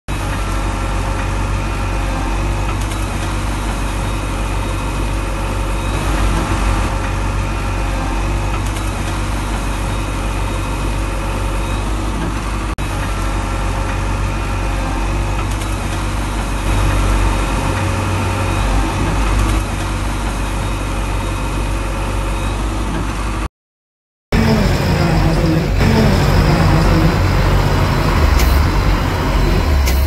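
Diesel engine of a JCB construction machine running steadily. About three-quarters of the way through, the sound cuts out for under a second, then resumes with more variation in pitch.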